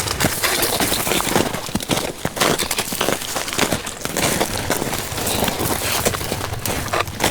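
A hiker's footsteps crunching steadily in snow, a crackly step every half second or so.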